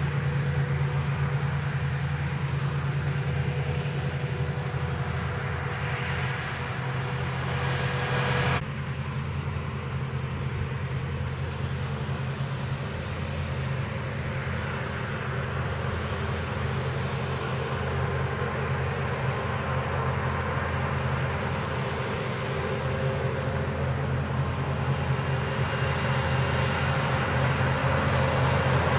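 Palesse GS12 combine harvester running steadily at work in the field, a low engine drone, with insects chirping in the grass. The sound changes abruptly about nine seconds in.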